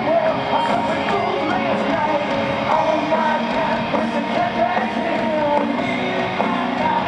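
Hard rock band playing live over a stadium PA: a male singer over electric guitars and drums, heard from the crowd.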